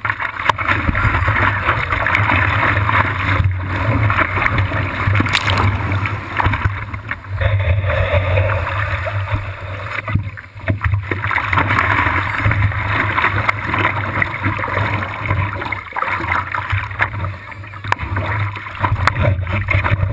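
Water sloshing and splashing against a surfboard in shallow surf, heard from a camera at water level on the board's nose, with a steady low rumble underneath.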